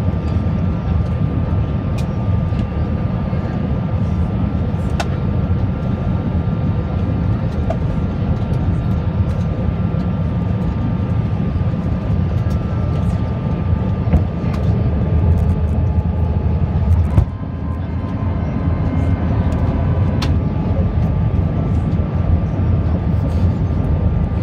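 Airbus A321 cabin noise on approach, heard from a window seat over the wing: a steady low roar of the engines and airflow, with a thin steady whine on top and a few faint clicks. About 17 seconds in, the roar drops suddenly, then builds back up.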